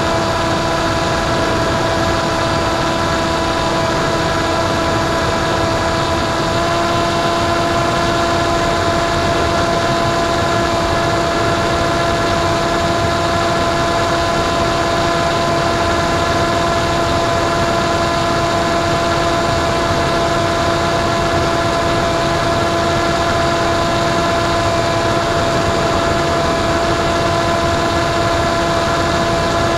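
Penguin FPV plane's electric pusher motor and propeller whining at a steady pitch in flight, heard from the onboard camera, with wind rushing over the microphone. The pitch steps up slightly and gets a little louder about six seconds in.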